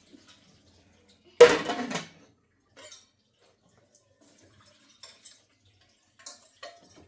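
A short, loud clatter about one and a half seconds in, followed by a few faint knocks and clicks.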